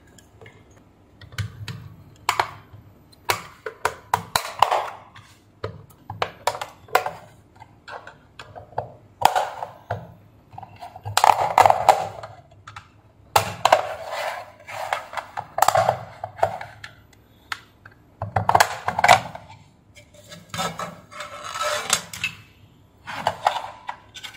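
Irregular clicks, knocks and scraping as the casing of a 24 V 150 W SMPS LED driver is pried open with a screwdriver and handled on the bench, with a few longer stretches of scraping and rattling.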